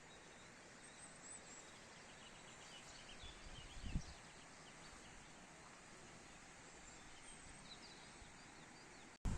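Faint, steady outdoor ambience with small bird chirps here and there. A brief low thump comes about four seconds in.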